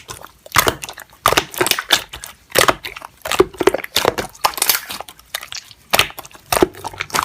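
Slime being squeezed and pressed by hand, making irregular crunchy crackles and pops.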